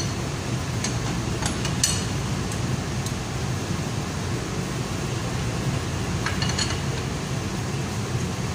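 Steady machinery hum, with a few light metallic clicks of hand tools on the flange bolts about a second in and again near the middle.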